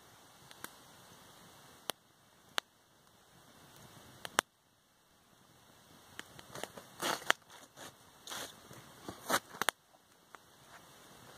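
Small campfire of damp wood crackling, with a few sharp single pops early on. About six seconds in a denser run of louder crackling and rustling sets in and stops near the ten-second mark.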